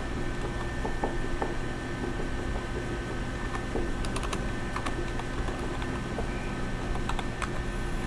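Computer keyboard typing: scattered keystrokes and clicks, with small runs about four seconds in and near the end, over a steady low hum.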